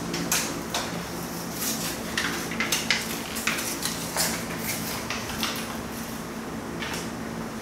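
Small objects being handled: a string of light clicks and rustles as a fog light bulb and its packaging are picked up and worked in the hands, over a steady low hum.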